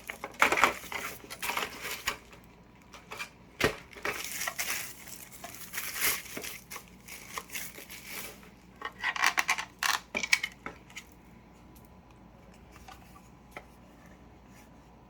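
Packaging being handled during an unboxing: bursts of crinkling and rustling with sharp clicks and knocks, dying away about eleven seconds in.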